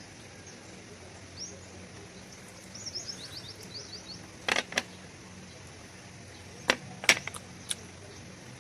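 A bird chirps a quick run of short falling notes, followed by several sharp clicks or knocks, over a steady low hum.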